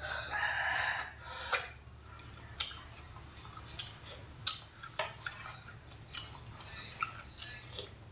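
Metal spoon and chopsticks clicking against a stainless steel food tray while eating, sharp clicks every second or so, the loudest about four and a half seconds in. Near the start, a short slurp from the spoon at the mouth.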